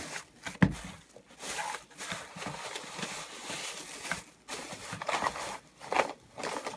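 Someone rummaging through a work bag for a small plastic toy part: irregular rustling and handling noises, with a sharp knock about half a second in.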